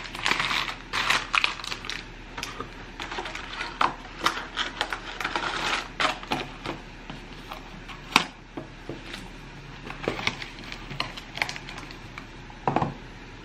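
Crinkling and rustling of a padded mailer and cardboard gift boxes being unwrapped and handled, in irregular crackles and sharp taps, with a duller knock near the end.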